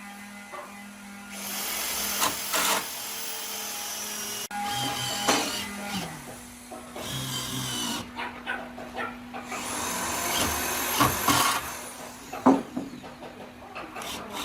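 Woodworking power tools running in short bursts, with sharp knocks and taps on wood in between; the sound changes abruptly several times.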